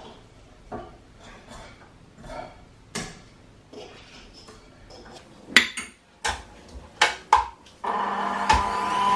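Kitchen bowls and utensils knocking and clinking, a string of separate clatters that grow louder and come closer together past the middle. Near the end an electric kitchen appliance starts up with a steady hum.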